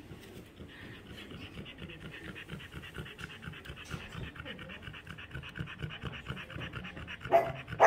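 A small dog panting fast and steadily, then two short, loud barks near the end.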